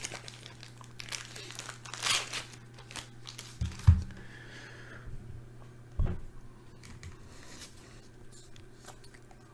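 Plastic bag of penny card sleeves being opened and handled, crinkling, followed by a couple of soft thumps. A steady low electrical hum sits underneath.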